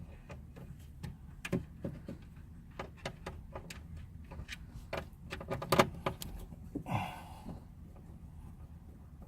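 Irregular small clicks and knocks of a Torx driver working screws out of a car's plastic interior trim, with a brief scraping rustle about seven seconds in.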